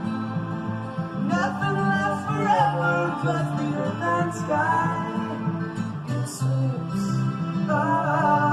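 Music with singing over guitar accompaniment.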